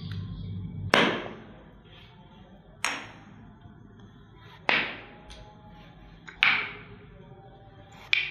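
Background music that stops about a second in, followed by five sharp sound-effect hits, each fading over about half a second, one roughly every two seconds.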